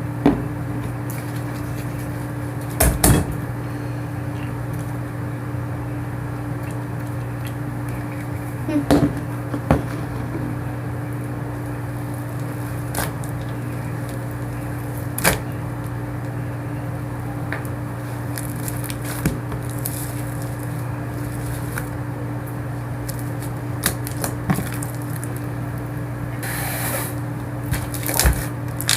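A steady low mechanical hum, with a few scattered sharp clicks and knocks and a short hiss near the end.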